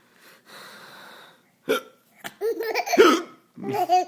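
A man hiccuping, with a baby's giggly laughter breaking out about halfway through, loudest near the end.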